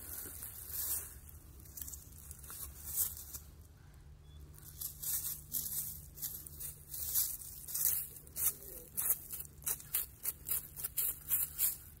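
Dry leaf litter and pine needles crackling and rustling in short, irregular bursts as a small child rummages through them with her hands and a twig. The crackles come faster and closer together near the end.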